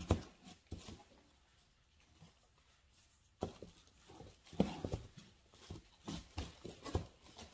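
Shoes being handled and put away: scattered knocks and clunks of hard soles and heels against each other and surrounding things, thicker in the second half.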